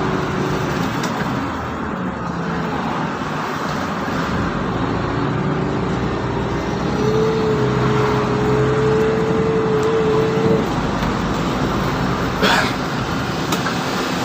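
Mercedes-Benz O530 Citaro city bus running, with a steady engine and road rumble. A whine rises from about five seconds in, holds, and cuts off sharply about ten and a half seconds in. A brief hiss follows about two seconds later.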